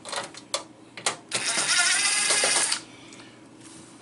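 A Craftsman cordless drill/driver runs for about a second and a half, backing a screw out of a microwave's steel wall-mounting plate. A few light clicks come before it.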